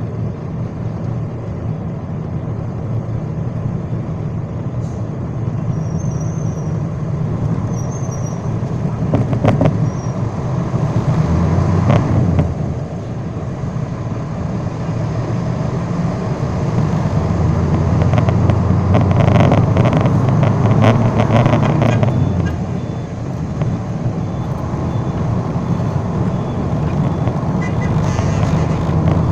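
Road traffic heard from a moving vehicle: a steady low rumble of engines and tyres. It swells louder about ten seconds in and again for a few seconds near the twenty-second mark as other vehicles pass close by.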